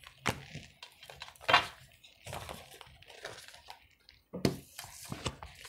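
Tarot cards being pulled and handled on a table: light card rustling with a few sharp taps and clicks, the loudest about a second and a half in.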